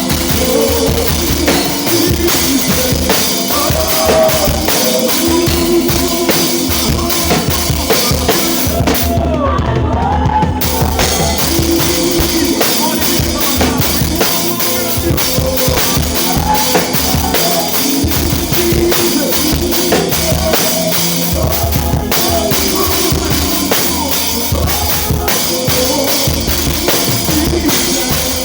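Live church worship band playing an instrumental groove, poorly recorded: a drum kit with bass drum, snare and cymbals drives steadily over sustained bass notes, with a gliding melodic line above. About ten seconds in the cymbals drop out for roughly a second before the kit comes back in.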